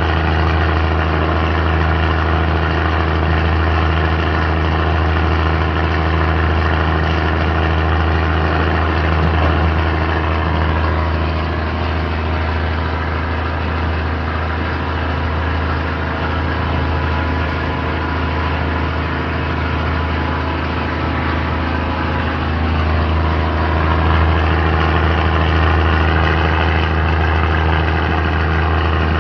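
Diesel train under way: a steady low engine drone over a dense rolling rumble, its note shifting slightly about a third of the way in and again near the end.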